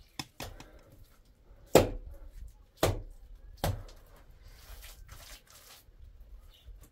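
Sharp knocks from block-laying work on a concrete-block wall: three loud ones about a second apart near the middle, lighter taps before them, and some scraping after.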